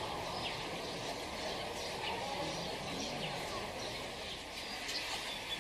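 Outdoor ambience: a steady background hiss with small birds chirping on and off throughout, short quick falling chirps.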